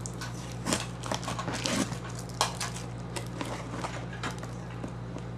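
Fingernails picking and scratching at clear packing tape on a cardboard box, the tape crackling in short, irregular scratches and clicks as it is worked loose.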